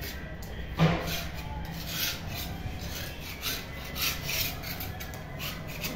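Paint softened by chemical paint remover being scraped off a wall: repeated rasping scraping strokes, with a sharper knock about a second in.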